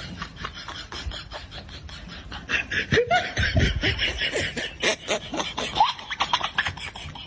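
A person laughing in quick breathy bursts, louder from about two and a half seconds in.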